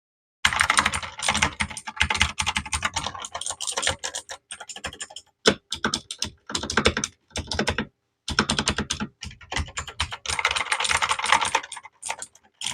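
Typing on a Redragon Kumara K552 mechanical keyboard with blue clicky switches: a dense clatter of sharp keystroke clicks in quick bursts, with brief pauses about five and eight seconds in.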